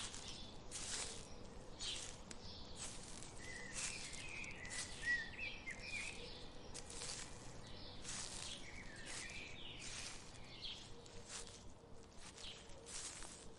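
Forest ambience: irregular short rustling noises, one or two a second, with a bird chirping a few short calls near the middle.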